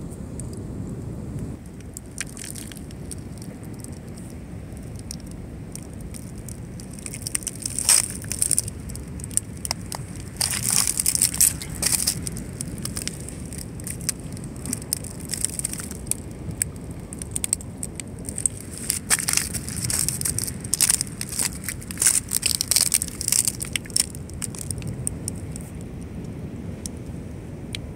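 Irregular crunching crackles that come in clusters through the middle, over a steady low rumble.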